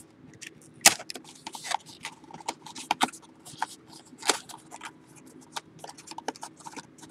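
Trading-card packaging being handled and opened: irregular rustling, crinkling and sharp little clicks of wrappers and cardboard, with a louder click about a second in and another past four seconds.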